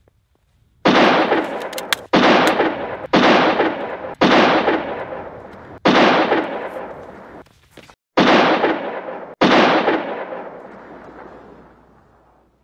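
Seven gunshots, each a sharp report followed by a long fading echo that the next shot cuts off; the last echo dies away over about three seconds.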